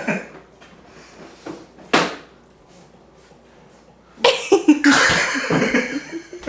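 A woman coughing after a sip of a spicy, wasabi-laced drink: one sharp cough about two seconds in, then a louder, longer bout of coughing and spluttering near the end.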